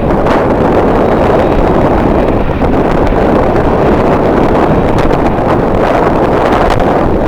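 Strong wind blowing across the camera microphone: a loud, steady low rumble of wind noise.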